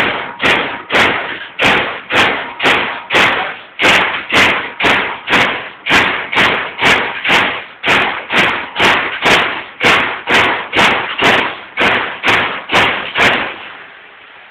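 Baykal BPM-T CNC turret punch press punching sheet metal in steady, evenly spaced strokes of about two a second, each a sharp hit followed by a short ring. The strokes stop about a second before the end, leaving the machine's steady hum.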